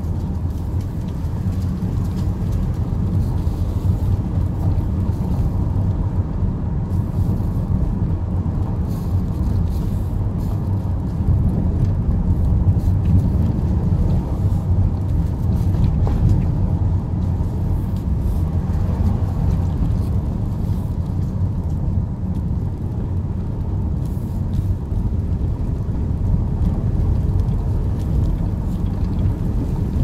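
Car driving along a narrow winding paved road, heard from inside the cabin: a steady low rumble of engine and tyres.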